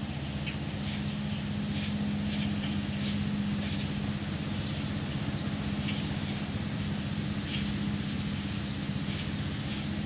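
A steady low mechanical hum, with short high bird chirps scattered over it.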